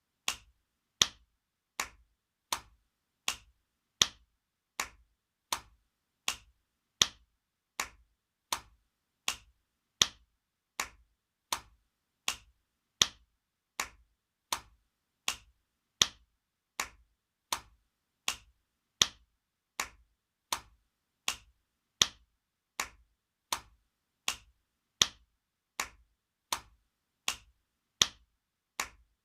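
Spanking sound effect: sharp slaps of a hand on skin, repeated at an even pace of about four every three seconds, some strokes louder than others.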